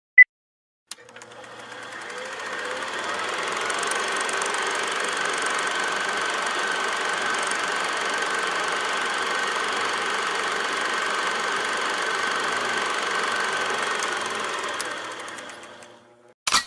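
Steady mechanical, engine-like noise with a high whine, swelling in over about three seconds, holding, and fading out near the end; a single short high beep sounds just before it.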